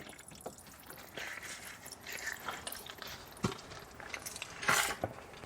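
Gloved hands working a warm oil filter by hand, with a few light clicks and a short scrape near the end, over a faint trickle of oil.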